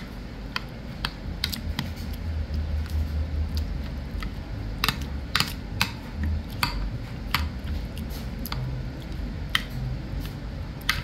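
Metal bean masher pressing roasted tomatoes and serrano chiles in a glass baking dish: irregular sharp clicks, about one a second, as the masher strikes the glass, over soft low thumps of the mashing.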